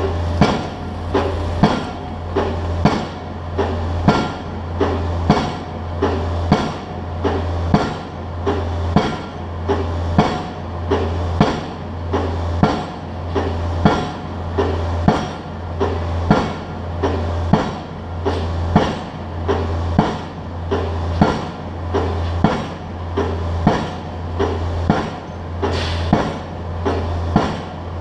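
Pile driver's hammer striking a pile in a steady rhythm, about one blow a second, over the continuous low hum of the rig's engine.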